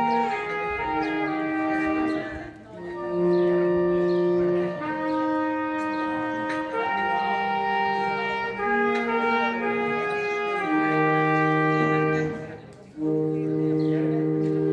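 Slow instrumental music of held chords, each lasting a second or two, with short breaks between phrases about two and a half seconds in and near the end.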